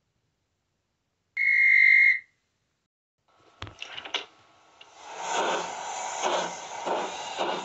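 Steam locomotive whistle blowing once, a short steady high note under a second long. After a few clicks, steam chuffs begin and get quicker as the engine pulls away.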